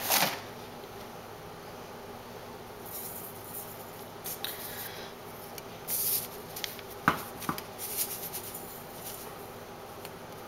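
Sugar sprinkled from a ceramic soup spoon onto fish, pork belly and tofu in a stainless steel pot: soft rustling patters of falling grains, with a few light clicks of the spoon, over a steady low hum.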